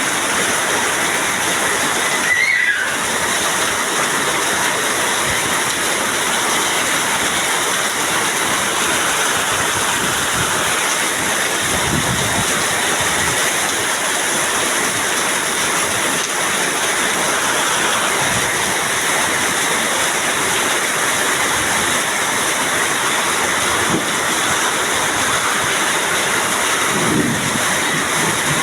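Heavy rain pouring down in a steady, unbroken hiss, with one brief louder sound about two and a half seconds in.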